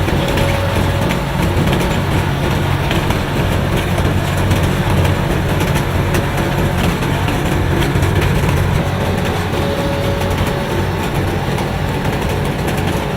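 Engine of a heavy asphalt paving machine running steadily under load, a continuous low hum.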